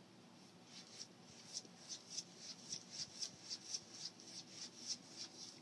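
Kitten's paw scratching and rubbing at a cabinet door over and over, a quick series of light scratchy strokes about three or four a second, starting about a second in.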